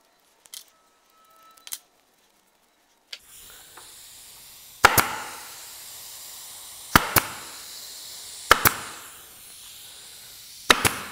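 Pneumatic upholstery stapler firing staples through fabric into a wooden panel frame: four sharp shots, each a quick double snap, starting about five seconds in. A steady hiss of air runs under the shots.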